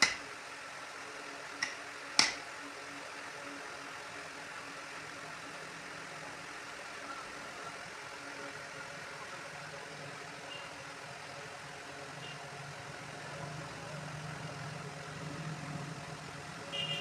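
Squirrel giving sharp, loud chirps, three in the first two and a half seconds, then only a few faint short calls later on and a brief one near the end. Under them runs a steady engine-like hum that grows a little louder in the last few seconds.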